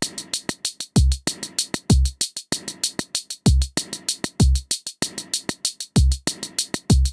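Elektron Digitone FM synthesizer playing a programmed drum pattern: deep kicks that drop in pitch land in pairs, over a fast, steady run of hi-hat-like ticks.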